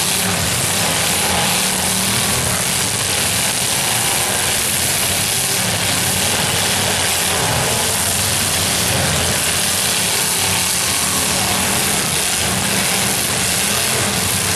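Several demolition derby cars' engines running and revving together in a steady din, with no single crash standing out.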